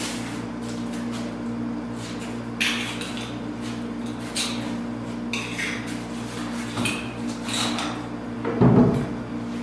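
Wooden door being handled and fitted into its frame: scattered clinks and knocks, with a heavy low thump near the end.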